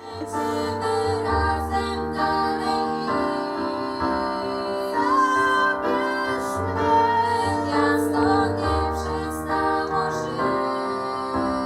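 Music: a woman singing a melody over sustained keyboard chords and a bass line.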